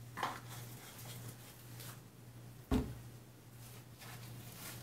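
Quiet handling sounds over a steady low hum: a light knock just after the start, then one dull thump about halfway through, and a faint click near the end.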